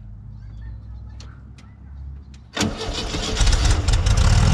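The cold air-cooled flat-four of a 1973 VW Westfalia bus is started: after a couple of seconds of faint low hum it cranks, catches almost at once, and settles into a steady idle. It is a cold start, and it cranks without a problem.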